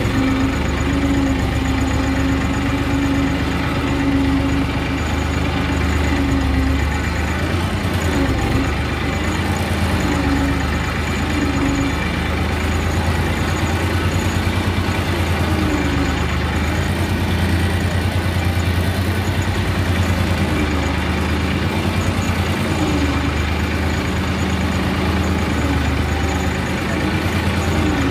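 Massey Ferguson 5245 tractor's three-cylinder diesel engine running steadily at a constant low speed, with a deep, even rumble.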